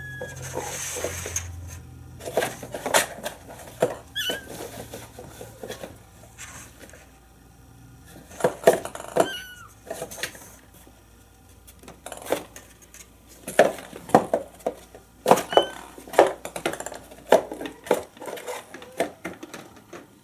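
A young kitten mewing: a few short, high-pitched mews several seconds apart. Scattered light knocks and clatter are the loudest sounds.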